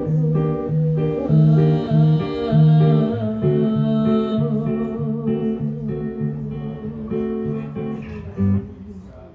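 Guitar-led acoustic band playing the closing instrumental bars of the song, a repeating figure of plucked notes that slowly dies away and ends on a last short note near the end.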